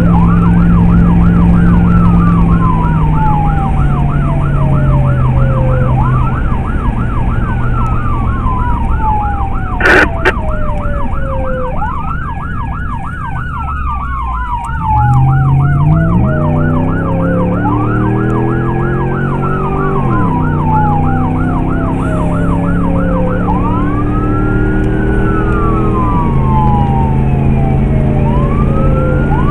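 Emergency vehicle's electronic siren sounding continuously, alternating long wails that rise and then slowly fall with fast yelp warbles, heard from inside the responding vehicle. About ten seconds in there is one short, sharp loud sound. After a quieter patch, the engine is heard speeding up from about fifteen seconds in, with its pitch dropping back twice as it changes gear.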